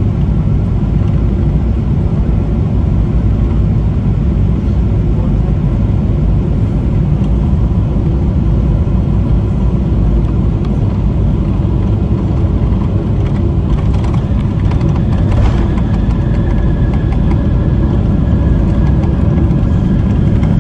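Cabin noise of a Boeing 777-300ER with GE90-115B engines landing: a steady rumble of airflow and engines. About two-thirds of the way in there are a few knocks, and a higher steady whine joins as the jet rolls out on the runway with its spoilers raised.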